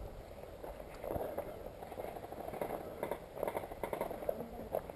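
Footsteps crunching through dry scrub and gravel, with rustling of clothing and gear, in an uneven walking rhythm.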